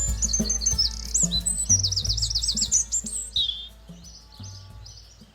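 Small birds chirping in quick runs of high, sliding notes, over background music with a low bass line that fades out in the second half, leaving fainter chirps.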